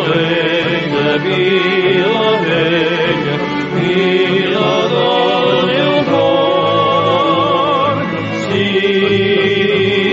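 Sung music: voices holding long notes with a wide vibrato.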